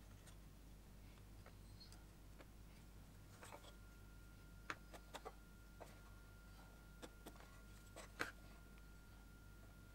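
Near silence with scattered faint clicks and taps of a sliding bevel and pencil being handled and set against a pine workpiece while marking out a joint; the sharpest click comes about eight seconds in.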